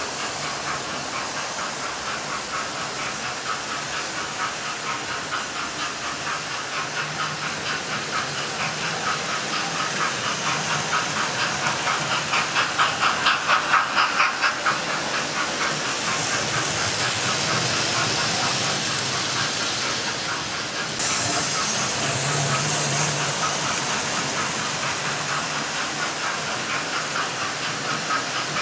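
Model steam locomotive sound decoder on a running model railway, chuffing in an even rhythm with hissing steam, over the rumble of several model trains on the track. The chuffs grow louder and quicker towards the middle, and a higher steam hiss comes in suddenly about three quarters of the way through.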